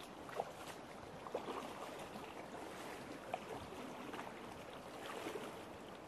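Fox River flowing with a soft, steady rush of water, with a few faint knocks of footsteps on the stony bank.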